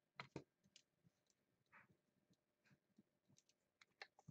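Near silence with a few faint, scattered clicks and soft handling noises.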